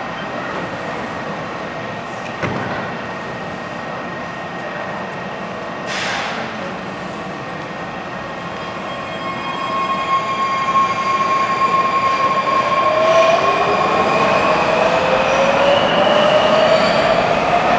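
Washington Metro train of Rohr 1000-series and Breda 3000-series cars closing its doors with a short clatter about six seconds in, then pulling out. From about nine seconds the train grows louder, with a steady whine and then traction motor whines rising in pitch as it accelerates.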